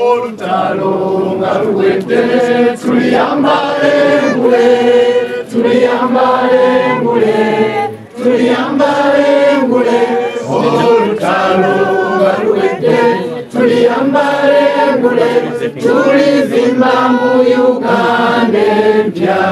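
A crowd of people singing a struggle song together in chorus, loud and continuous.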